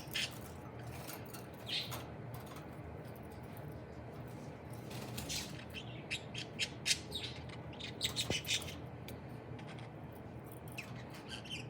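Young budgerigar giving short, high chirps and squawks in quick irregular runs, busiest about halfway through.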